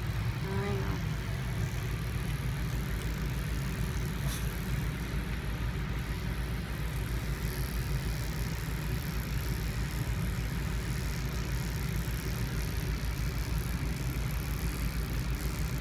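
Steady low hum of a running motor, with a fast, even pulse.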